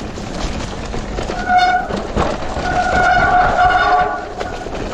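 Shimano EP8 e-bike mid-drive motor whining under load on a steep climb. The high, steady tone rises in briefly about a second and a half in, then holds for over a second further on, over the constant rustle and clatter of the bike on rough ground.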